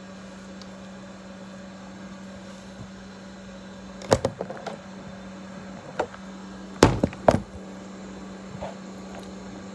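Handling noises: a few sharp clicks and knocks, the loudest a pair about seven seconds in, over a steady low hum.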